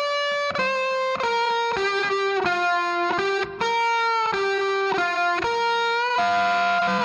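Background music: an electric guitar playing a melody of held notes, a new note about every half second.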